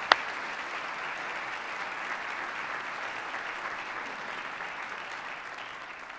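Audience applauding steadily, with one sharp clap close to the microphone right at the start; the applause thins and fades near the end.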